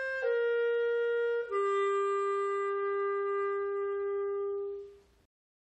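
Solo instrumental music: a single melody instrument plays slow held notes, a brief step down in pitch and then one long low note from about a second and a half in. The note fades out about five seconds in.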